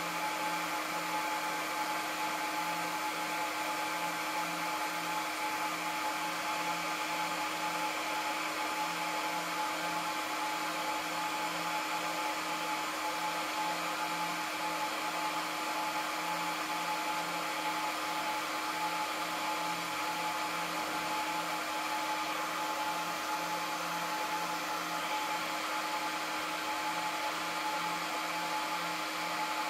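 Aruba S3500-48P PoE switch's cooling fans running steadily while the switch boots, a constant airy rush with a steady whine and a low hum that pulses a few times a second.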